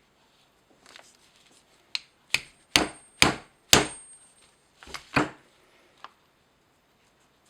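A small hammer tapping a brass part into a chainsaw oil pump: about seven sharp metallic taps, a few a second, with a short pause before the last two and a lighter tap near the end. A faint high ring follows some strikes.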